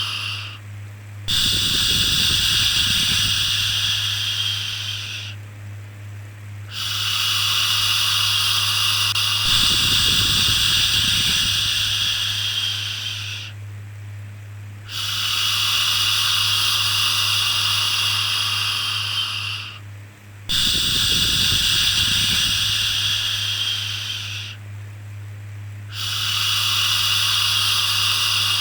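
A person making long, soothing "shhh" shushing sounds to calm a baby, repeated about five times with short breaks between them. Some shushes start with a puff of breath. A steady low hum sits underneath.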